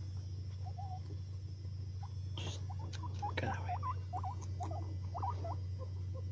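Guinea pig giving a run of short squeaks, a few faint ones early and many quick ones in the second half, with brief rustling in the wood-shaving bedding. A steady low hum runs underneath.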